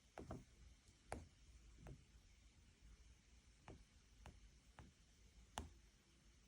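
Near silence with a faint low hum and about eight sharp, irregular clicks, each with a brief falling tail: unwanted noise on the CQ20B mixer's output, the buzzy-noise problem that shows up when it is used with an iPad.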